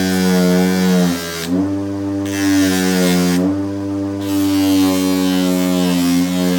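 Small electric power tool's motor running steadily with a hissing scrape over it. The motor's pitch sags and recovers twice as it is loaded, and the scrape stops twice for under a second.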